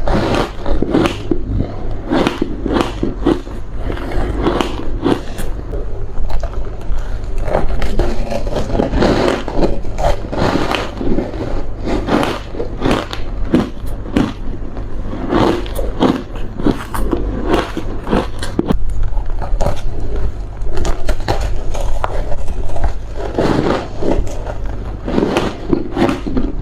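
Close-miked biting and chewing of hard frozen ice: rapid, irregular crunches and squeaky crackles that continue throughout, over a steady low hum.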